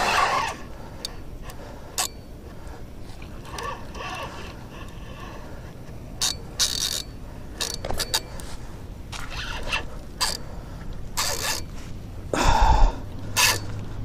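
Scraping, rubbing and knocking handling noises from a spinning reel and rod being worked while fighting a hooked fish. They come as scattered short clicks and scrapes, with a louder scrape and thump about twelve seconds in.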